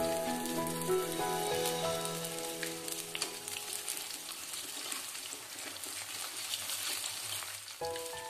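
Corn fritters sizzling in hot oil in an aluminium wok, with scattered scrapes and taps of a metal spatula against the pan as they are turned. Soft background music plays over the first few seconds and comes back near the end.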